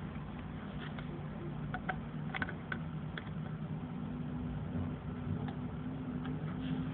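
Scattered faint clicks of a GoPed's rear drive chain and sprocket as the wheel is turned slowly by hand while chain oil is applied, over a steady low hum. A sharp click comes right at the end.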